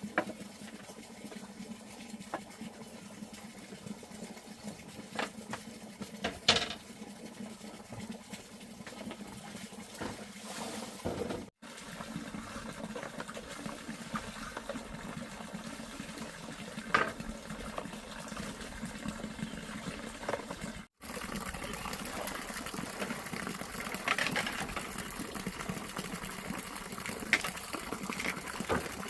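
Water running and splashing steadily, with a few light knocks now and then.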